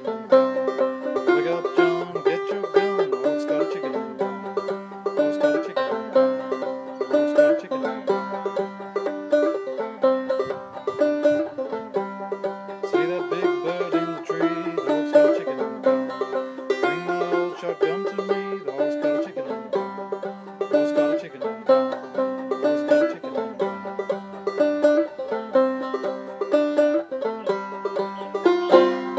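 Solo five-string banjo played clawhammer style: a steady, rhythmic run of plucked notes with a repeating melodic phrase of an old-time fiddle tune.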